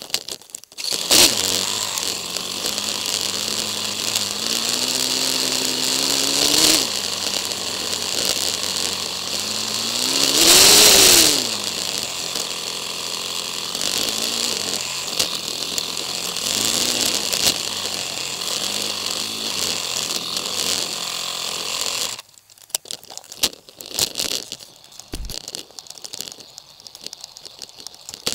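Motorcycle engine running and revving, its pitch climbing through the gears, with a loud rev that rises and falls about ten seconds in. The engine sound drops away about two thirds of the way through, leaving quieter scattered rustling and knocks.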